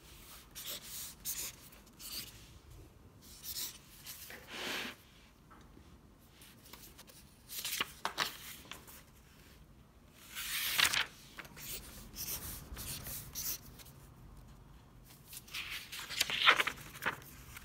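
Paper rustling as the pages of a paperback question book and a loose answer sheet are handled and turned, with scratchy pen strokes ticking off answers on the pages. The sounds come in irregular short bursts.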